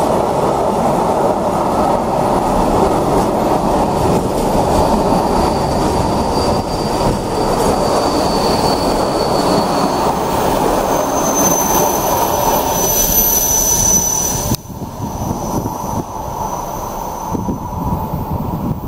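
Freight wagons (open Eas gondolas, then Sdqnss container flats) rolling past close by: a steady rumble of wheels on rail with high-pitched wheel squeal. About three-quarters of the way through the last wagon goes by and the noise drops suddenly to a fainter, fading rumble.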